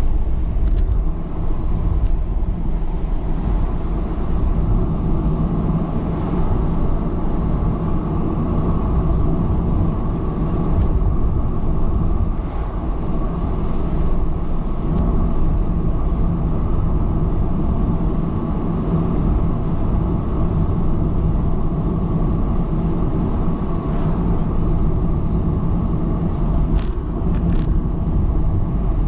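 Steady low rumble of a car driving along a city street, engine and tyre noise heard from inside the cabin, with a few faint clicks near the end.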